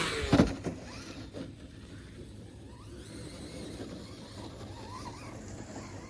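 A 1/10-scale RC rally car's brushless electric motor revving loudly in the first half-second, then running faintly for the rest of the time.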